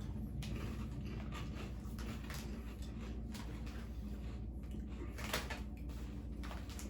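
Scattered crackles and crunches as a packet of hand-cooked cheese and onion potato crisps is opened and the crisps are eaten, over a steady low hum.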